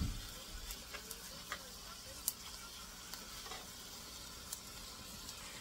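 Shredded chicken with garlic and onion sizzling softly in a frying pan as a metal spoon stirs it, with a few light clicks of the spoon against the pan.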